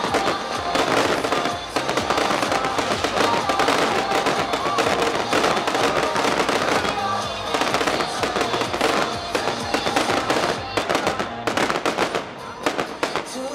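Aerial fireworks bursting in rapid, continuous crackling and popping, with music playing underneath.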